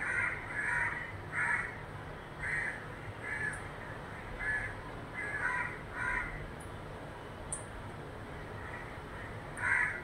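Crow cawing: a string of about nine caws spaced half a second to a second apart, then a pause of about three seconds and two more caws near the end.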